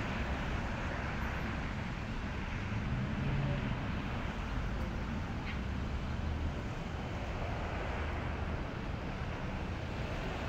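Street traffic: cars and a bus passing on the road, a steady hum of tyres and engines with low rumbles swelling as vehicles go by.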